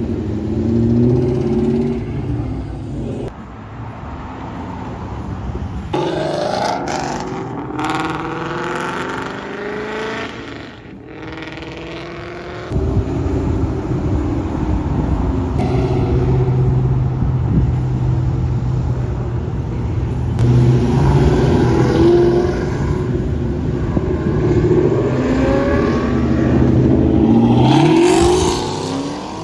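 Modified Ford Mustangs revving and accelerating away one after another, engine pitch rising in repeated pulls with a steady rumble between them. Near the end one car revs hard, rising sharply in pitch.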